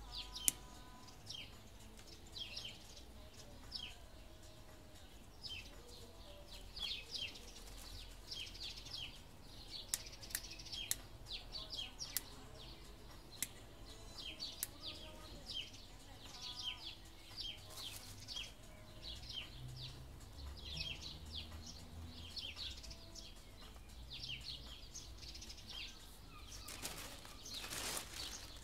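Small birds chirping repeatedly in short notes, with a few sharp clicks of split kindling sticks being handled and a brief rustle near the end.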